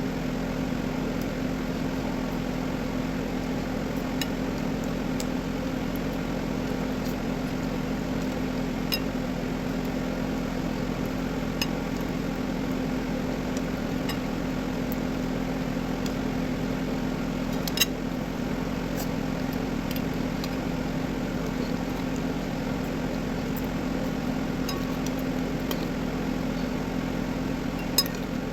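A steady low mechanical hum, with a few short, faint clicks now and then.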